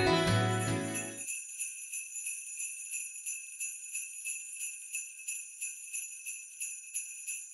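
Background music ends about a second in, leaving sleigh bells jingling alone, shaken in a steady even rhythm.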